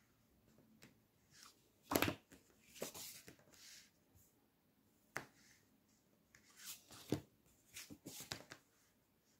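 Paperback books handled on a table: covers sliding and being set down, with irregular scrapes, taps and paper rustles, the loudest about two seconds in.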